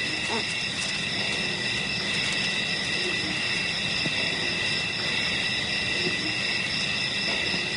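Steady chorus of insects, a continuous high buzzing at several pitches at once, with no break or change.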